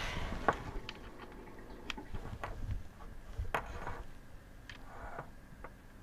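Banana plugs on test leads being pushed into the sockets of a Labdisc datalogger's plastic housing: a handful of small, irregular clicks and taps with handling rustle, the sharpest about three and a half seconds in.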